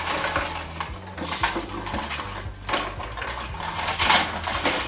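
Light clattering and clinking of hard objects, a run of irregular clicks and knocks.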